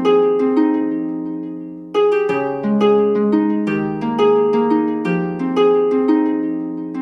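Background music: gentle harp-like plucked notes in slow arpeggiated chords, with a brief lull about a second in.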